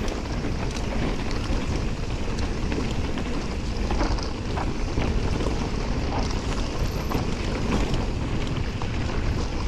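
Wind rushing over an action camera's microphone during a fast mountain bike descent, with the tyres rolling over loose dirt and rocks and scattered small clicks and rattles from stones and the bike.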